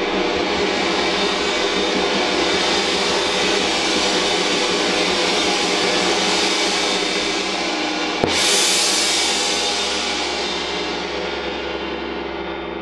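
22-inch Chinese wind gong sounding in a loud, sustained wash under a mallet. A little past halfway comes one sharp, harder strike, and after it the gong rings on and slowly fades.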